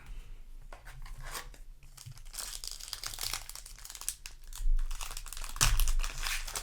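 Foil Yu-Gi-Oh! booster pack wrappers crinkling and rustling as they are handled, with louder crackly bursts near the end.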